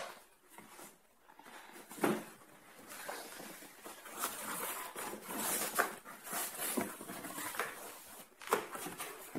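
Corrugated cardboard box being opened by hand: flaps scraping and rustling as they are folded back, with a couple of dull knocks, the loudest about two seconds in.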